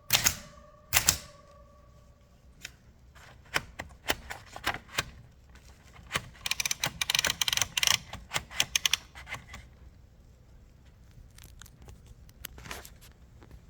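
1938 Remington Bantam portable manual typewriter being typed on: keys strike the platen in irregular runs, with a fast flurry of clicks about halfway through and only a few strikes near the end. A bell rings once at the start and fades over about two seconds, typical of the margin bell.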